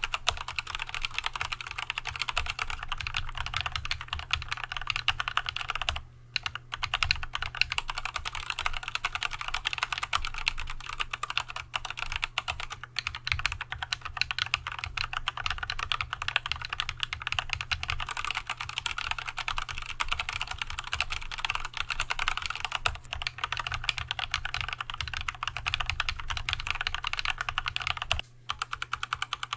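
Fast, continuous typing on an Archon AK87 hot-swap mechanical keyboard with Tealios V2 linear switches and Leopold keycaps, with a short break about six seconds in and another near the end. The first stretch is with the switches unlubed; the later stretch is with the same switches lubed with Christo 129.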